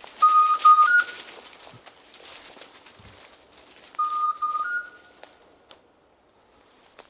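Electronic beeper of a hunting dog's Garmin tracking gear sounding a short three-note beep, two equal notes then a slightly higher longer one, twice about four seconds apart. Rustling of brush and leaves underneath.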